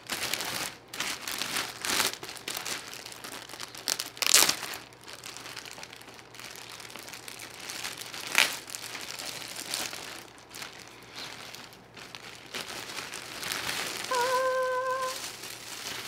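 Clear plastic bag crinkling and rustling as a canvas tote bag is worked out of it, with a couple of sharper crackles along the way. A short steady hummed note comes near the end.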